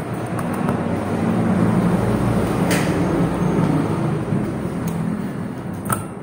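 A low engine rumble that swells and then fades, with two sharp clicks about three seconds apart.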